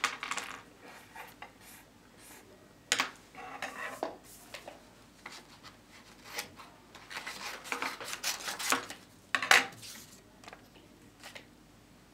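Scissors cutting paper in short, irregular runs of snips, with paper rustling and scraping against a desk and a few sharper clacks, the loudest about three seconds in and near the end.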